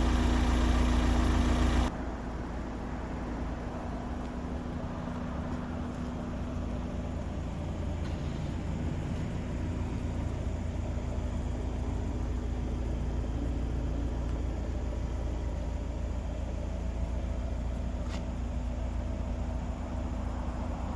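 Toyota MR2 (SW20) four-cylinder engine idling steadily through a Fujitsubo aftermarket muffler. About two seconds in the sound drops suddenly to a quieter, steady low idle rumble.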